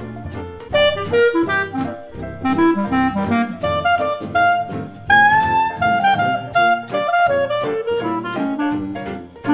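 Jazz music with saxophone and brass playing quick, busy melodic runs over a bass line and light drums.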